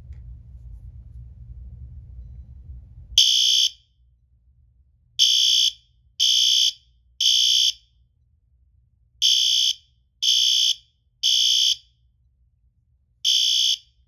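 System Sensor LED L-series fire alarm horn strobe sounding its horn in the temporal-three evacuation pattern. Shrill half-second blasts come in groups of three about a second apart, with a longer pause between groups, starting about three seconds in.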